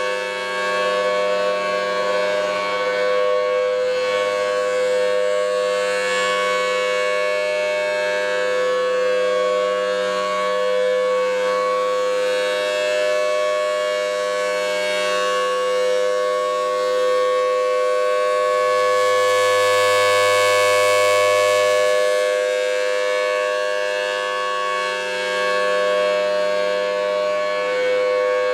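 Federal Signal Thunderbolt 1000T outdoor warning siren sounding a steady wail, the alert signal for a tornado warning test. It swells louder for a few seconds about two-thirds of the way through.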